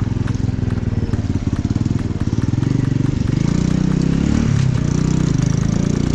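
Motorcycle engine running under way, its revs rising and falling.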